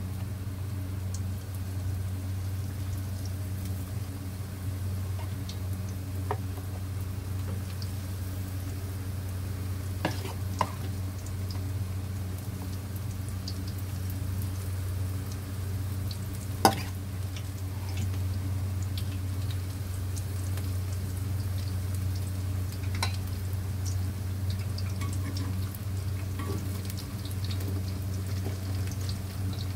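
Corn fritter batter deep-frying in hot oil in a pan, a steady sizzle over a steady low hum. A few sharp clicks of a metal spoon against the pan as more batter is spooned in, the loudest clank about 17 seconds in.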